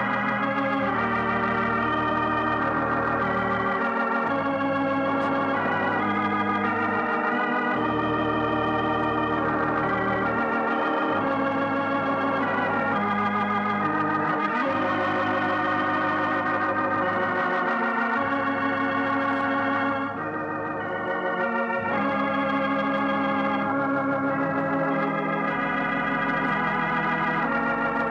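Closing theme music played on an organ: held chords over a bass line that changes note every few seconds, with a brief softer moment about twenty seconds in.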